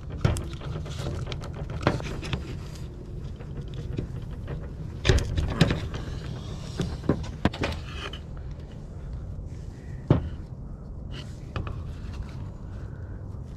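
Scattered light clicks and knocks of small metal parts being handled as a spring is fitted back into a chainsaw's mechanism, over a steady low hum.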